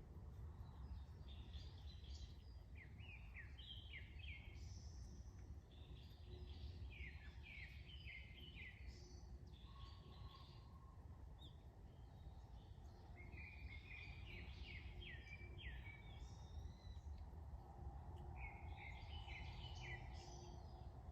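Small songbirds chirping in quick runs of short, falling notes, coming in clusters every few seconds, over a faint steady low outdoor rumble.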